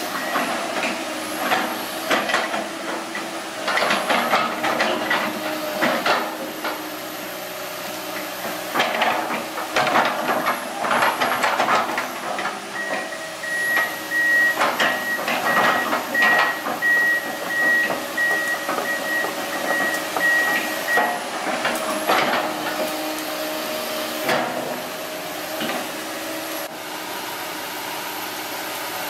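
Komatsu PC160LC hydraulic excavator running, its steel bucket repeatedly scraping and knocking through soil as it backfills a trench. A high, evenly pulsed alarm beeps from about a third of the way in to past the middle, the excavator's travel alarm sounding as it moves on its tracks.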